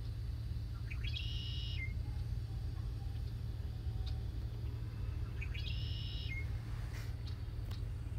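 A bird calls twice, about five seconds apart: each call is a short, high phrase of several stacked tones ending in a brief lower note. Under it runs a steady low hum.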